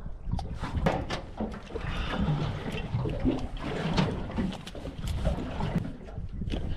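Water lapping and sloshing against the hull of a small boat, with scattered knocks and rustles of dive gear being handled on deck.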